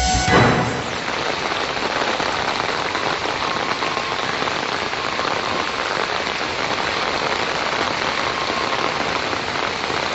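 Heavy rain falling on a flooded street, a steady, even hiss of rain and running water. The tail of a news intro jingle fades out in the first half second.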